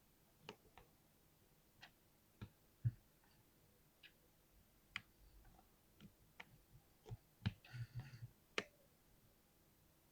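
Faint keystrokes on a Cherry MX mechanical keyboard: sparse, irregular clicks about one or two a second, with a quicker run of keystrokes about eight seconds in.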